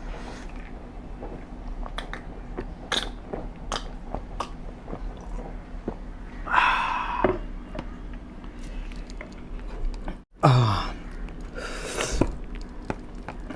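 Close-up chewing and biting of food, with many small crunches and mouth clicks. Louder noisy mouth sounds stand out about six and a half seconds in and again just after a brief dropout about ten seconds in.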